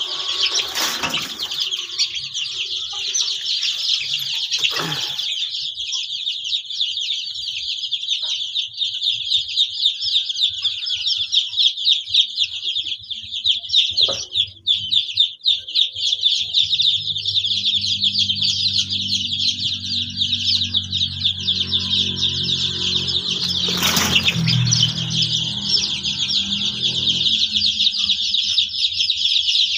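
A flock of kampung chicks peeping nonstop, many high-pitched cheeps overlapping into one dense chorus. A low hum joins in during the second half, and there is a single knock near the end.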